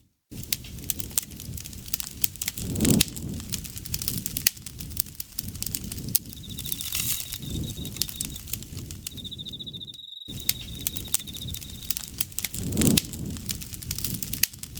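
Campfire crackling and popping with many sharp snaps over a low rumble of burning wood, swelling twice. An insect trills in a fast, high pulsed tone in two stretches through the middle.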